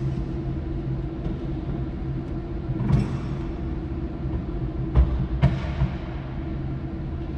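A 5-ton electric forklift truck humming steadily, with a few short knocks and clunks: one about three seconds in and two more around five seconds in.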